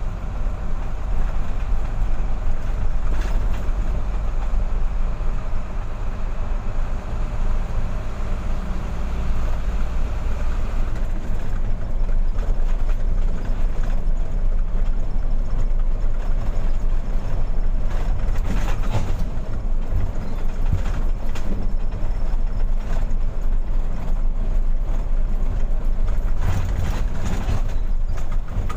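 Mitsubishi Fuso 220 PS truck's diesel engine running steadily under way, heard from inside the cab as a deep drone. Its note shifts about eleven seconds in, and a few short knocks and rattles break through now and then.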